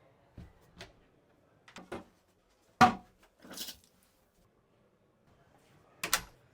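A series of scattered clicks and knocks, the loudest a sharp bang about three seconds in, followed by a short hiss, and a quick double knock near the end.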